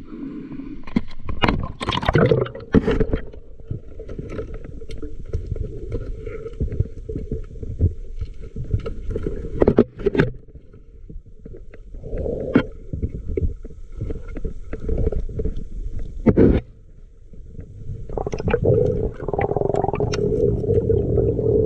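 Underwater sound during a night dive: water rumbling and bubbling, with a steady hum and many sharp crackles and knocks.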